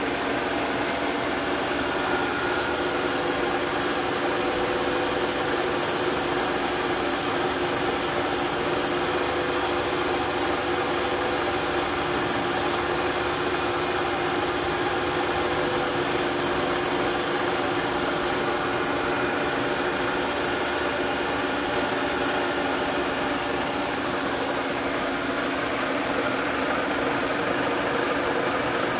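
Bridgeport tracer mill running steadily, its spindle turning a 1/4-inch four-flute ball nose end mill that cuts a black walnut grip blank, a constant machine hum with the hiss of the cut.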